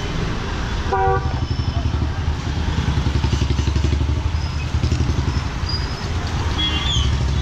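Motorcycle and scooter engines running close by in slow, crowded traffic, a steady low pulsing, with a short horn toot about a second in.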